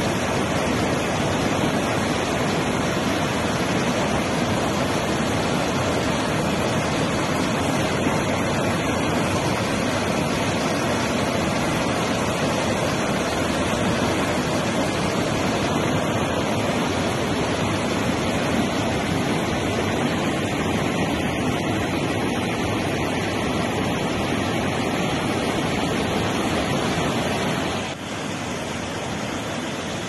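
Bogatha Waterfall in spate after heavy rain: floodwater rushing over the falls and through the flooded pool in a steady, loud, even rush. It drops a little in level for the last couple of seconds.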